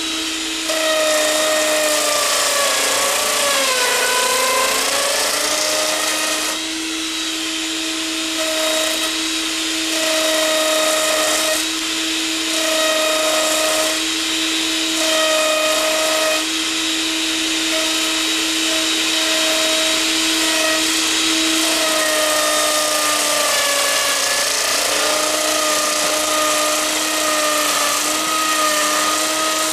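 Wood router running at high speed on a homemade router lathe, cutting along a spinning hardwood blank: a steady whine over the hiss of the cut. The whine dips in pitch as the bit takes load, most clearly about four seconds in, and a little again near the end.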